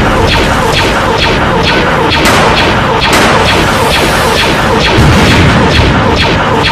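Loud, dense action soundtrack: booms and blasts layered over music with a fast, steady beat of about four hits a second. Two rushing bursts come about two and three seconds in, and a deep rumble swells about five seconds in.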